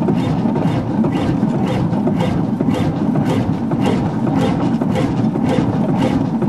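Hundested 45 HP one-cylinder two-stroke hot-bulb (semi-diesel) marine engine running steadily at slow speed, with an even knocking beat of about three strokes a second.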